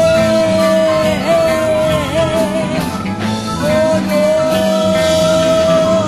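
Early-1970s psychedelic progressive rock music: a lead line holds one long high note, dipping briefly a couple of times, then holds a second long note, over a changing bass line and band backing.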